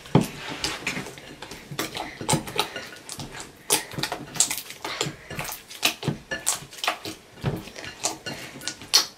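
Sticky clear-glue slime being kneaded and squeezed by hand: irregular wet squelches and sticky pops, several a second. The stickiness marks a slime that is not yet fully worked in after activation.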